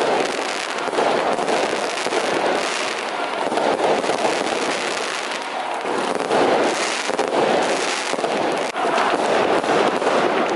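Fireworks and firecrackers going off in a dense, continuous crackle, with many small bangs close together and no pause.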